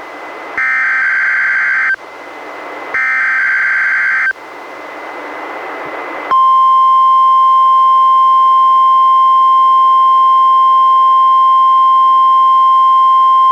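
NOAA Weather Radio alert broadcast on a weather radio: two short screeching bursts of SAME digital header data, about a second apart, with rising receiver hiss between and after them. About six seconds in, the steady 1050 Hz warning alarm tone starts, louder than the bursts, sounded here as a required weekly test.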